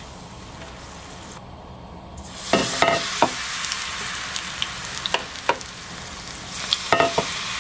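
Battered mugwort deep-frying in a small pan of oil: a soft sizzle that grows into a louder, steady crackling hiss about two and a half seconds in, with a few sharp clinks through it.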